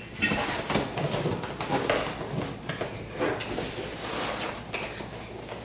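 Cardboard shipping boxes being handled and opened, with irregular rustling and scraping of cardboard.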